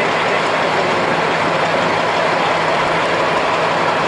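Heavy rally truck's diesel engine idling steadily, a dense, even rumble with a rushing noise over it.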